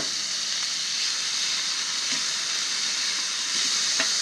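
Bacon burgers and venison frying on a flat-top griddle, a steady sizzle with a couple of faint clicks.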